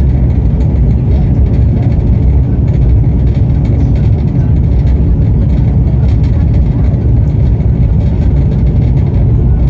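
Loud, steady low rumble of a moving passenger train, heard from on board as it runs along.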